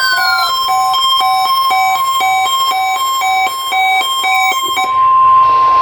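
NOAA Weather Radio warning alarm tone, a steady 1050 Hz tone held unbroken, sounding for the weekly test. Mixed in are rapid alternating beeps on several pitches and a falling sweep that ends about half a second in. The beeps stop about five seconds in, leaving the tone alone over radio hiss.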